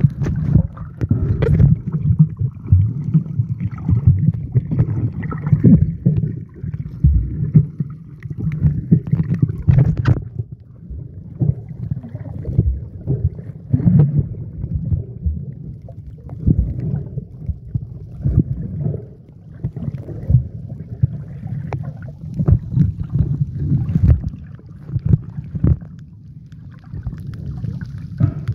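Water sloshing and rumbling around a submerged microphone while snorkelling, muffled and low, with irregular knocks and crackles as the swimmer moves through the water.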